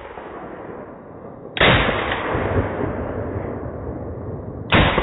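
G3 rifle firing two single shots in 7.62×51mm, about three seconds apart: one about a second and a half in, one near the end. Each sharp report is followed by a long echoing tail that dies away slowly.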